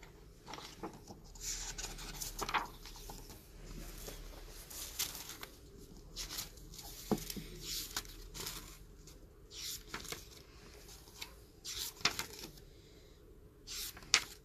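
Pages of a large hardbound book printed on heavy uncoated paper (Munken Pure 120 g/m²) being turned by hand: a string of short, irregular paper swishes and rustles.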